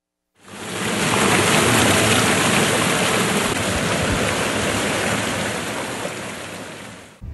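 Steady rushing water, fading in within the first second and holding even, then cutting off abruptly near the end.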